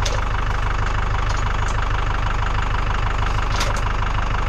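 An engine idling steadily with an even low throb, and a couple of faint clinks about three and a half seconds in.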